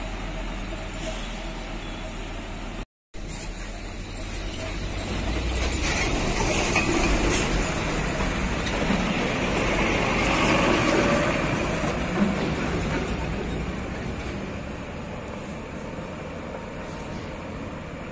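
Heavy dump trucks driving on a gravel road: engine and tyre noise builds over several seconds as a truck passes close, then fades as it pulls away. The sound cuts out briefly about three seconds in.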